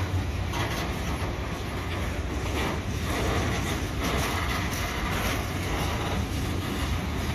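Freight train of Network Rail hopper wagons running past at speed: a steady rumble of wheels on rail with scattered clatter.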